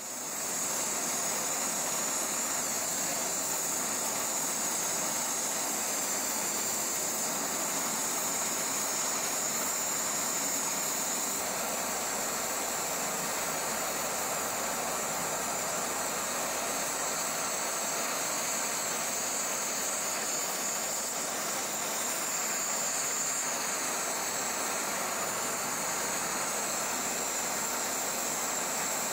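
Butane torch fed with compressed air, its flame blowing with a steady hiss as it heats a carbide insert and steel bar for brazing with bronze rod.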